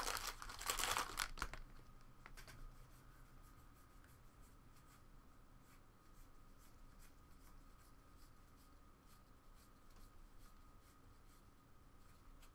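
Foil trading-card pack wrapper crinkling as it is pulled open, for about the first second and a half. After that, a run of faint soft ticks as baseball cards are slid one by one from hand to hand.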